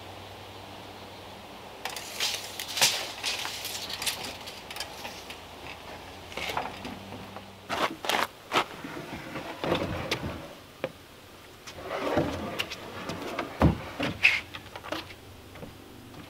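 Irregular knocks, taps and clatter with rustling as objects are handled and set down, and footsteps on wooden deck boards.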